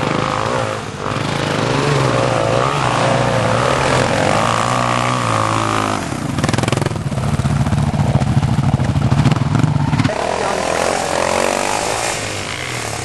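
Dirt bike engines revving up and down, the pitch rising and falling with the throttle. About six seconds in, one bike passes close at high revs and is loudest for about four seconds, then distant bikes revving are heard again.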